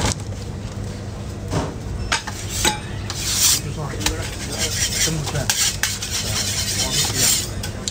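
Metal spatula scraping and tapping on a hot jianbing griddle, in several scraping strokes, with a light sizzle as the crepe is worked and loosened for folding.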